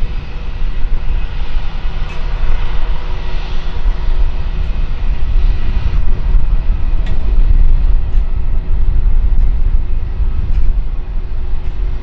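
Boeing 737-900's CFM56-7B jet engines on final approach with gear down: a steady, loud deep rumble with a faint even whine over it.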